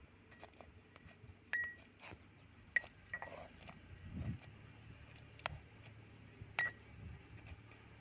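Brass pestle pounding walnuts in a brass mortar: scattered sharp, ringing metal clinks as it strikes the mortar's side, three of them louder than the rest, among softer taps.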